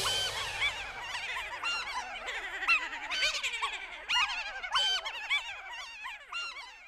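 A chorus of cartoon voices laughing and cackling together, the troublesome trucks' laughter, many overlapping high laughs that slowly fade out.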